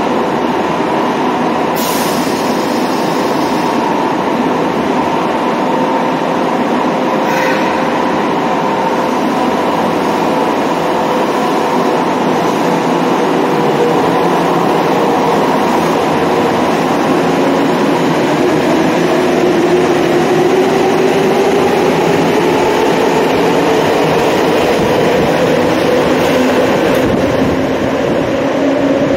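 Nagoya subway Tsurumai Line train running, a loud steady rumble with the electric motor's whine. The whine rises in pitch through the second half. Two brief clanks come at about two and seven seconds in.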